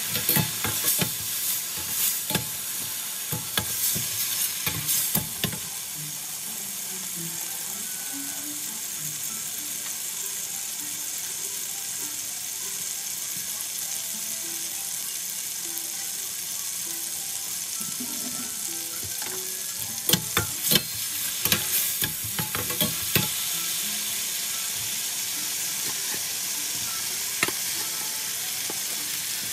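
Onion-and-potato gravy sizzling steadily in a stainless steel pan, with a slotted metal spatula scraping and knocking against the pan in two spells: in the first few seconds and again about two-thirds of the way through.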